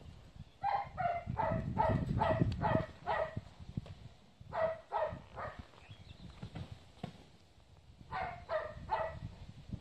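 A dog barking in three runs of quick, fairly high barks: about seven in a row, then three, then three more near the end. Low wind rumble on the microphone under the first run.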